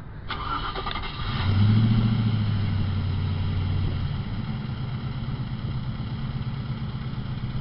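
A TVR convertible's V8 is started: the starter cranks for about a second, then the engine catches with a brief flare of revs and settles into a steady, deep idle.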